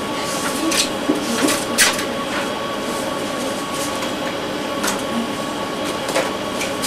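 Steady background hum and hiss, with a handful of short, sharp rustles and clicks of paper pages being handled.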